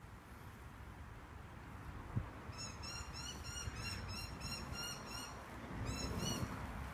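A bird calling: a quick run of short, repeated notes, about four a second, beginning a couple of seconds in, with a brief second run near the end. A single soft low thump comes just before the calls start.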